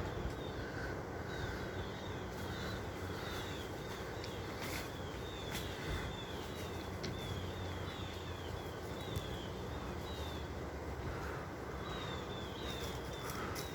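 Outdoor background sound: a steady low rumble, with runs of short, high, falling chirps repeating a few times a second and a few sharp clicks.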